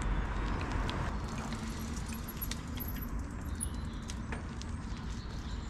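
Bicycle with loaded rear panniers riding away over tarmac: scattered light metallic clinks and rattles from the bike, over steady outdoor background noise.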